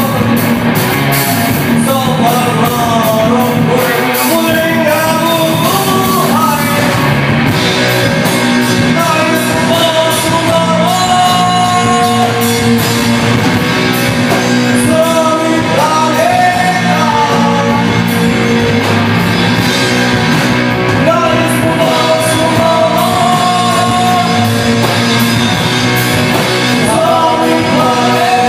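Live rock band playing loudly and continuously: a male singer over electric guitar, bass guitar and drums.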